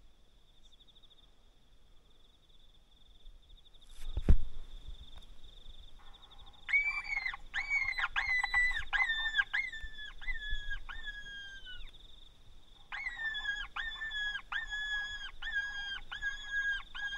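Electronic predator caller playing a distress call: a run of identical high-pitched cries, each falling in pitch, about two a second, pausing briefly in the middle and then starting again. A sharp click is heard about four seconds in, and a faint steady high whine runs underneath.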